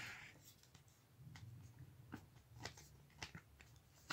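A few faint plastic clicks and taps of Blu-ray discs being pressed and worked loose from the stacked centre hub of a multi-disc Blu-ray case, with one sharper click near the end.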